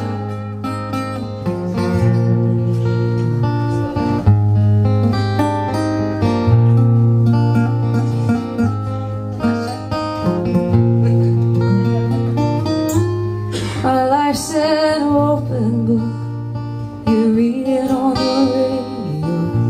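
Two acoustic guitars playing a steady strummed and picked accompaniment. A woman's singing voice comes in about two-thirds of the way through, over the guitars.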